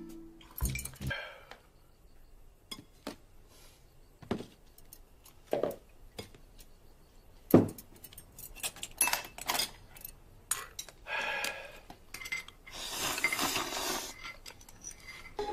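Mealtime table sounds: chopsticks and spoons clicking against bowls and a metal pot in scattered knocks, one of them sharper about halfway through. Near the end comes about a second of noisy slurping as noodles are sucked up.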